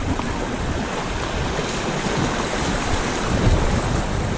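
Whitewater rapids rushing and churning around a kayak, a steady loud water noise.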